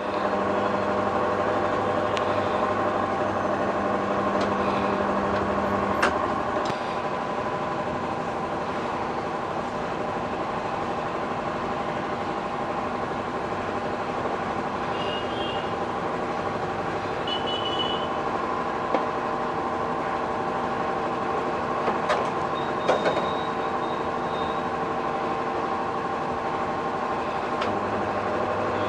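Motorized tyre-changing machine running steadily as it removes an old motorcycle tyre. A low hum cuts off with a click about six seconds in and starts again near the end, with a few light metallic clicks in between.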